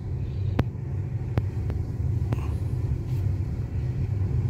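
Car driving, heard from inside the cabin as a steady low engine and road rumble, with a few light clicks in the first half.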